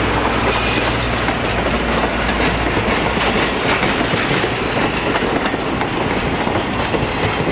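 Passenger cars of an excursion train rolling slowly past, their steel wheels clicking over rail joints, with a faint high wheel squeal about half a second in. A low steady hum under the rolling fades out about halfway through.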